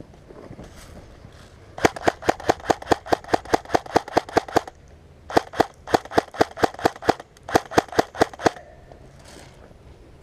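Airsoft gun firing two strings of rapid, evenly spaced shots, about five a second, with a short pause between the strings.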